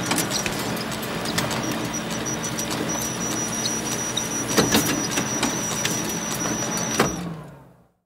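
Photocopier running: a steady mechanical whir with a thin high whine, a low hum and frequent light clicks, with two louder clacks about four and a half and seven seconds in. It fades out near the end.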